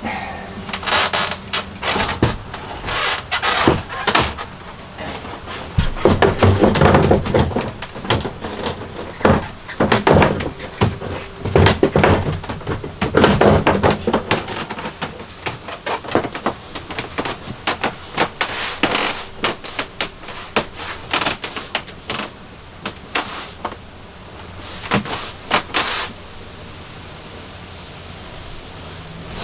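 Irregular knocks, thuds and scraping as a shower pan is worked into a wooden stud frame and pressed down onto the van floor. The handling noise is dense for most of the stretch and falls away to a steady low background about three seconds before the end.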